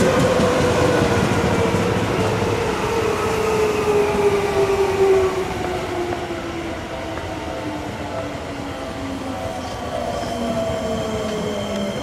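Seibu 20000 series electric train slowing down, the whine of its Hitachi 3-level IGBT-VVVF inverter and traction motors falling steadily in pitch over the rumble of the wheels. The sound drops in loudness about five seconds in, and a steady high whine sets in near the end as the train nears a stop.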